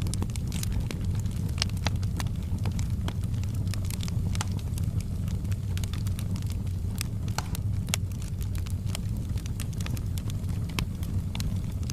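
Fire in a fireplace crackling, with irregular sharp pops several times a second over a steady low rumble of the flames.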